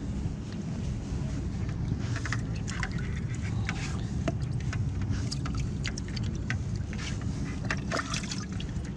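Steady low wind rumble on the microphone, with scattered clicks and rustles as a hand rummages among freshly caught perch in a plastic bucket.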